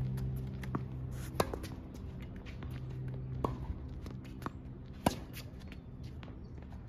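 Tennis rally on a hard court: three sharp pops of a racket hitting the ball about two seconds apart, two of them loud and one fainter, with softer ticks of ball bounces and footsteps between.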